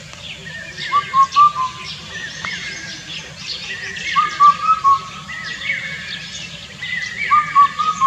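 Indian cuckoo singing its loud four-note whistled song, three phrases about three seconds apart, with other birds chirping behind.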